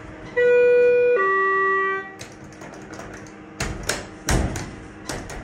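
Schindler 330A hydraulic elevator's car chime sounding a two-note descending ding-dong, the direction signal for a car about to travel down. A few sharp knocks and clicks follow near the end.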